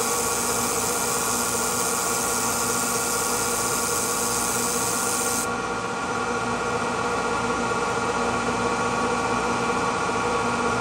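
K&T knee mill running a large end mill through chrome-plated 1045 steel, cutting a pocket in a leveling pad: a steady machine hum with the grinding noise of the cut. A high hiss drops away about halfway through.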